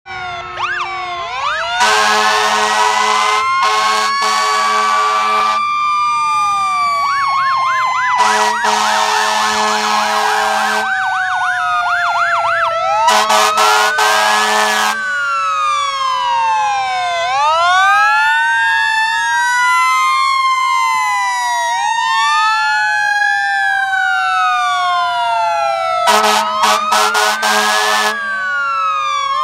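Several police and fire truck sirens sounding at once, their wails rising and falling out of step with one another, with a fast yelp partway through. Long horn blasts cut in over them four times.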